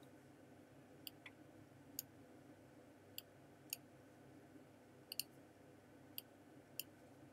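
Computer mouse button clicking: about nine short, sharp clicks at uneven intervals, two in quick succession about five seconds in, over a faint steady hum.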